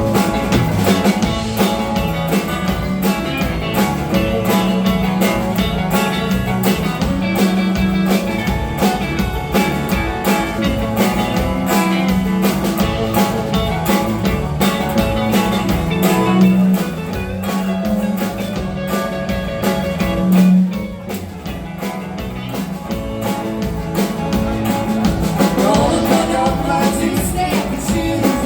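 Live band playing an instrumental break in a blues-rock song, with guitar over drums keeping a steady beat.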